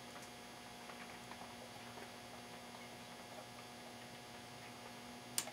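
Quiet steady electrical mains hum at a soldering bench, with a few faint ticks from the soldering work and one sharp click near the end.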